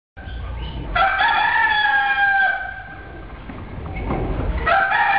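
Rooster crowing twice, each crow one long call falling slightly in pitch, over a low rumble.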